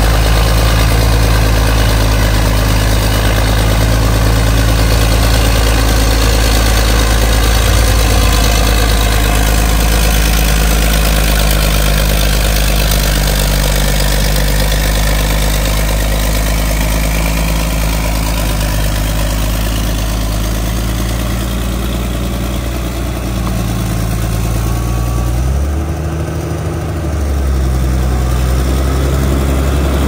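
Caterpillar D6D bulldozer's six-cylinder diesel engine running steadily under load as the dozer pushes wet clay. About 26 seconds in, the engine note briefly shifts and then settles at a slightly different pitch.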